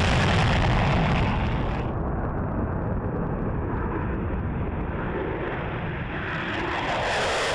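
F-16 Fighting Falcon jet engines in afterburner on takeoff: a loud, steady jet noise with a deep rumble. The high hiss drops away about two seconds in and returns near the end.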